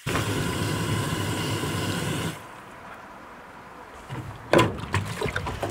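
Water running from an outdoor spigot into a plastic five-gallon water jug hung on its nozzle, starting suddenly and cut off about two seconds in. After that come a few knocks of the plastic jug being handled, the loudest near the end.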